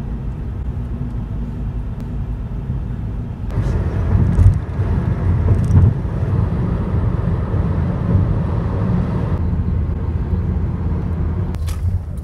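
Road and engine noise inside a moving car's cabin: a steady low rumble. It grows louder and hissier for several seconds in the middle, as at freeway speed.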